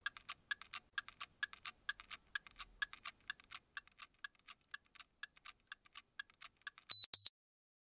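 Watch ticking steadily, about four ticks a second with alternating loud and soft strokes, then two short high-pitched beeps near the end.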